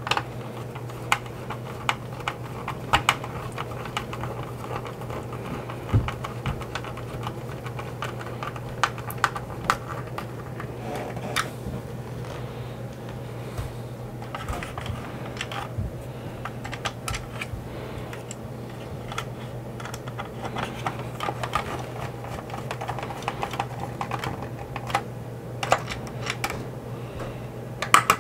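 Metal screws being driven by hand with a screwdriver into the plastic hull of a 1983 G.I. Joe Skystriker toy jet, with irregular light clicks and taps of the plastic parts being handled. A steady low hum runs underneath.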